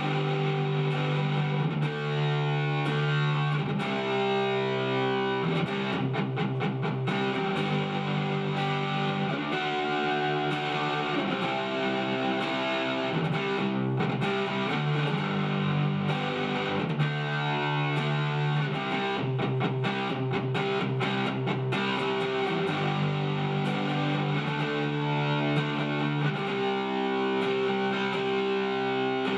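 Shelter SG-style electric guitar played through an amplifier with a distorted, overdriven tone: a repeating rock riff of held chords broken by quicker strummed passages.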